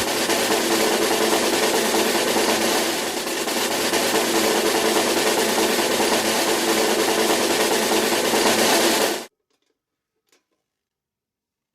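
A steady mechanical running noise with a low hum, which cuts off abruptly about nine seconds in.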